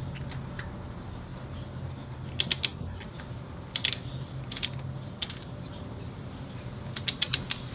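Socket ratchet clicking in short bursts as the transmission drain bolt is run in and tightened, with a quicker run of clicks near the end. A steady low hum sits underneath.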